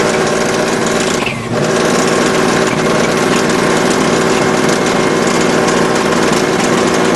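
Subaru Impreza WRC rally car's turbocharged flat-four engine idling steadily, with a short dip about a second and a half in.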